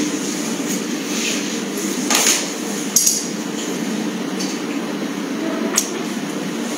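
Steady low hum of a large hall, with a few short sharp clicks and knocks: one about two seconds in, another about three seconds in, and a third near six seconds.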